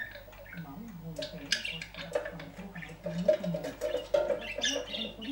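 Budgerigar chattering and warbling, mixed with short clicks and splashes as it dips into a water-filled cage bath.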